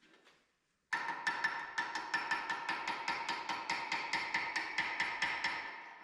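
Rapid hammer strikes on steel, about five a second, each blow ringing with a metallic tone; the run starts about a second in and slowly grows quieter.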